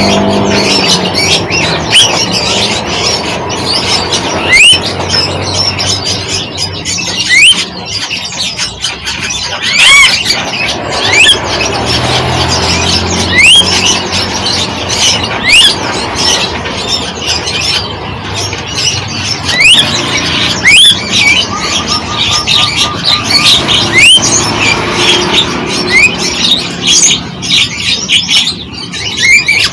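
Several birds calling at once, chirping and squawking, with a short rising whistle repeated every second or two.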